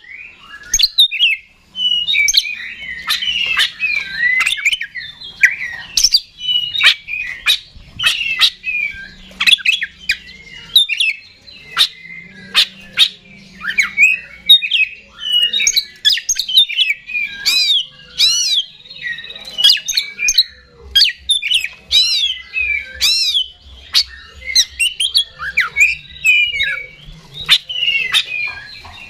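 Oriental magpie-robin singing loudly and without pause: a long, varied run of whistles and warbles mixed with sharp clicking notes.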